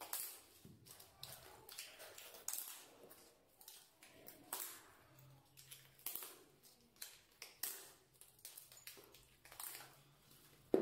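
Plastic tile-leveling clips clicking and tapping against porcelain floor tiles as they are handled and set into the joints: scattered, irregular light clicks.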